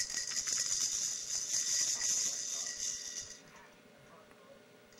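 A baby's toy rattle shaken rapidly in a quick run of fine clicks, stopping about three and a half seconds in.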